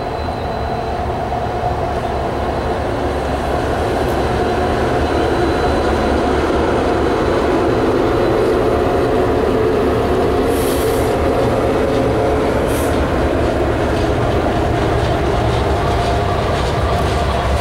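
A Norfolk Southern diesel-hauled freight train passing at close range. The locomotive goes by at the start, then a long string of flatcars loaded with heavy steel pieces rumbles past on the rails in a steady roll. Two short, high hisses come a little past halfway.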